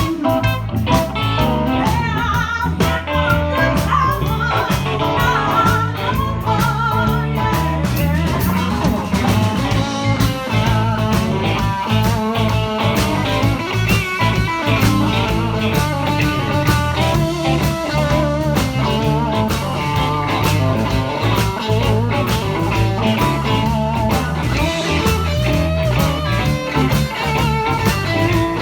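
Live blues band playing a swinging improvised jam: guitar lines over a stepping bass and a steady beat.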